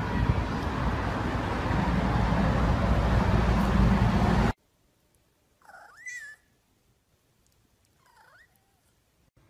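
A steady loud noise cuts off suddenly about four and a half seconds in. Then a tabby-and-white domestic cat meows twice, short calls about two seconds apart, the first louder.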